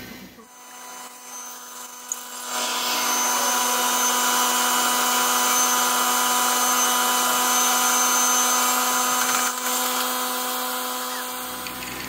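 An electric motor running steadily with a fixed whine and a rush of air. It comes on about two and a half seconds in and cuts off near the end.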